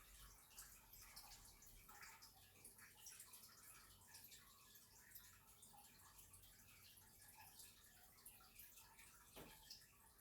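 Near silence: faint room tone with scattered small ticks.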